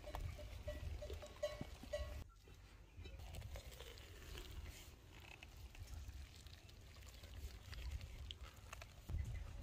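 Wooden spoon stirring and mashing a thick mash in a three-legged cast-iron pot, with scattered soft knocks and scrapes over a steady low wind rumble on the microphone.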